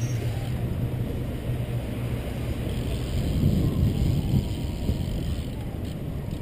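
Wind rushing over the microphone of a camera on a racing BMX bike, with the tyres rumbling over the track surface; rougher and louder for about a second, three and a half seconds in.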